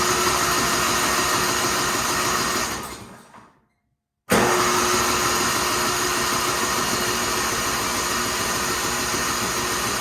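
Electric starter motor on an MTD Yard Machines snowblower cranking the engine in two long tries, with a quick, even pulsing as it turns over; the first try tails off about three seconds in and the second starts about a second later. The engine turns over but does not fire, which the mechanic traces to the fuel side: the carburetor was not even bolted on.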